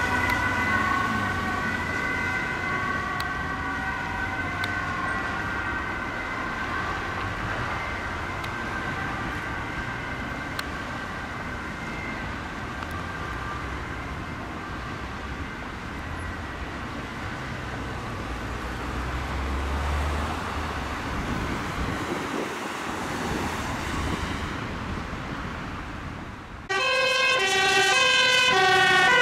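Ambulance siren fading into the distance over the first ten seconds or so, leaving passing road traffic. Near the end, a cut brings in a fire truck's siren, loud, switching rapidly between tones.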